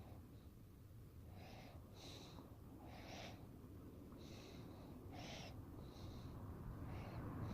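A bird calling faintly, short calls repeated about once a second.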